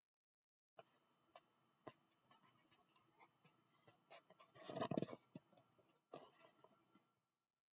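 Near silence, with a few faint ticks and, about five seconds in, a brief rustle of a hardcover picture book being handled close to the microphone.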